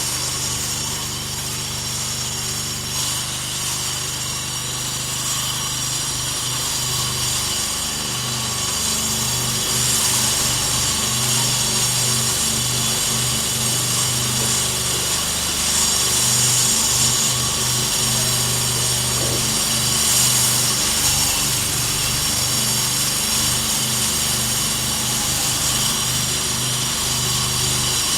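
Stone-polishing machine running: a steady motor hum under a continuous hissing grind of stone against the polisher, growing a little louder about ten seconds in.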